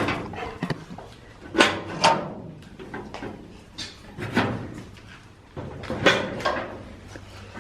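Metal school locker doors being handled, with several separate clanks and knocks a second or more apart.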